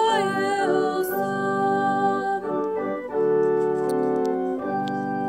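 Organ playing a hymn tune in sustained chords, changing chord every second or so.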